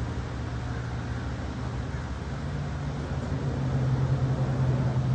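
Harley-Davidson Sportster 48 V-twin engine running at idle, a steady low rumble that grows louder about halfway through.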